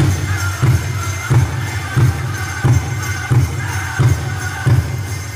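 Powwow drum group performing a chicken dance song: a big drum struck in a steady beat, about one and a half strokes a second, under high-pitched group singing. The drumbeats stop near the end while the singing carries on.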